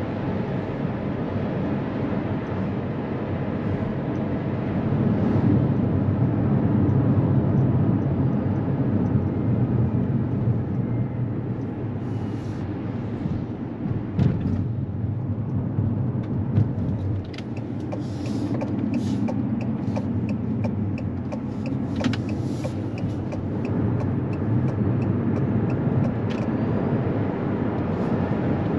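Abarth 500e electric hatchback being driven at speed: a steady low rumble of tyre and road noise, with scattered light clicks in the second half.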